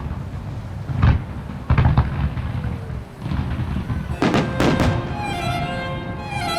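Fireworks bursting: heavy bangs about a second in and again near two seconds, then a quick cluster of sharp cracks about four seconds in. The display's orchestral music breaks off at the start and comes back with strings near the end.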